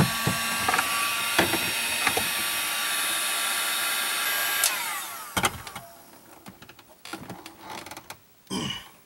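Handheld electric heat gun blowing steadily, its fan motor whining, while it heats a rubber fuel hose to free it from a fitting. It is switched off sharply about four and a half seconds in, leaving a few handling clicks and knocks.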